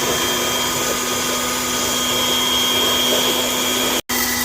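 Cooling blower of a DIY drum coffee roaster running steadily, a loud rushing air noise with a low hum and a thin high whine, cooling the freshly roasted beans after the heat is switched off. The sound breaks off for an instant near the end.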